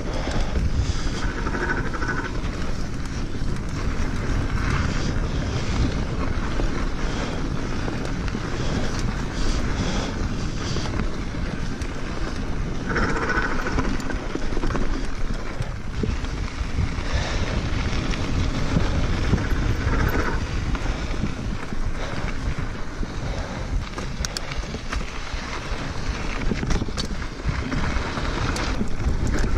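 Wind rushing over an action camera's microphone on a mountain bike rolling down dirt singletrack, with tyre noise and a few clicks and knocks from the bike over the trail.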